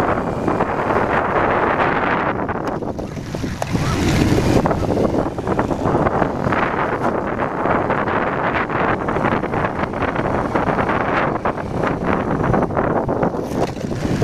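Wind buffeting the microphone of a moving motorcycle, a dense gusting rumble that eases briefly about three seconds in, with the motorcycle's engine running underneath.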